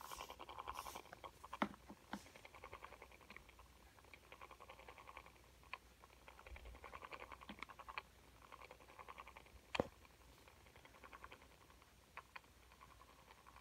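Faint whirring and rapid ticking from the Perfect Petzzz toy chimpanzee's battery-powered breathing mechanism, rising and falling in bursts about every two seconds. A few sharp clicks, the loudest near the end, stand out over it.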